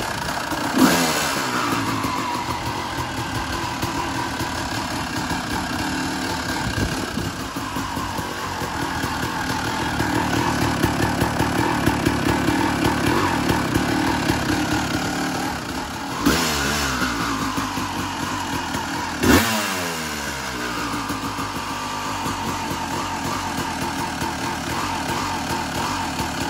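1998 Yamaha YZ250 single-cylinder two-stroke engine running through an FMF Gold Series exhaust, idling with the throttle blipped three times: sharp revs that fall straight back to idle, once about a second in and twice more later, three seconds apart. For a few seconds in the middle it runs a little faster and louder.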